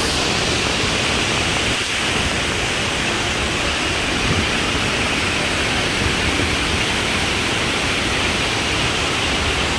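Loud, steady rush of a large waterfall's falling water, an even roar with no breaks.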